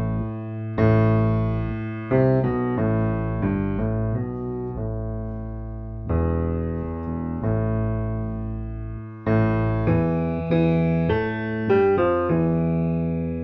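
Background piano music: chords and melody notes struck and left to ring, with a brief pause a little past the middle.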